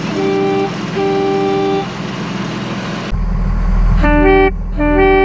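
Twin trumpet air horns on an Oshkosh plow truck, worked by a pull cord, sounding two pitches together: two short toots over the idling Cummins 6BT diesel, then two louder, longer blasts.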